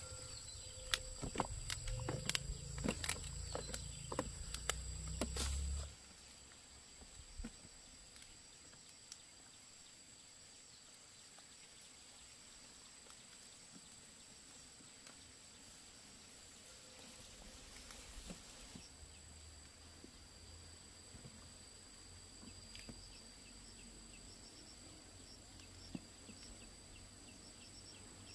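Faint, steady high-pitched insect calls, two tones held together, with short chirps near the end. For about the first six seconds there are also irregular knocks and a low rumble, which stop abruptly.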